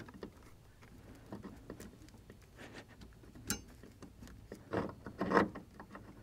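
Hands working a brake master cylinder, its plastic reservoir and clear bleeder tubing onto the power brake booster studs: light scrapes and small clicks, a sharp click about halfway through, and two louder scrapes near the end.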